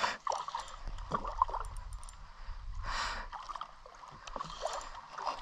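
Water splashing and sloshing in the shallows as a hooked grunter is fought and drawn in toward the bank, with a stronger splash about three seconds in.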